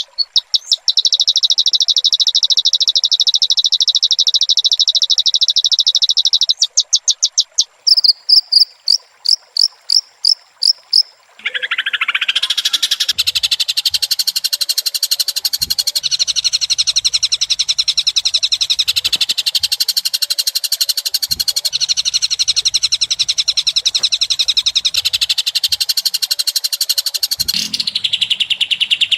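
White-rumped shama (murai batu) singing loudly. It opens with a fast, high, rattling trill held for about seven seconds, breaks into a run of separate sharp whistled notes, and from about the middle pours out a dense, varied, continuous song.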